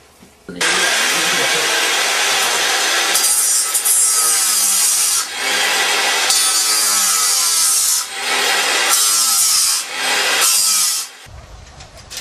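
A conch shell blown in long, loud blasts. The tone wavers in pitch under a harsh hiss, with short breaks about five, eight and ten seconds in, and it stops about eleven seconds in.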